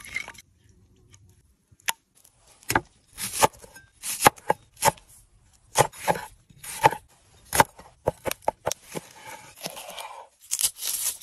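A large knife cutting a tomato and slicing a red pepper on a wooden cutting board: a series of sharp, irregularly spaced knocks of the blade against the board, with a longer crunching stretch of slicing near the end.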